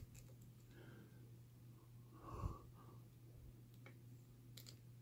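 Near silence with a steady low hum, a short puff of breath about halfway through, and a couple of faint ticks near the end from a pick working the pins of an ABUS padlock.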